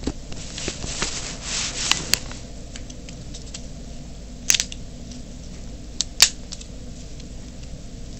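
Paper being handled: a rustle in the first two seconds, then a few short sharp clicks, the loudest about six seconds in.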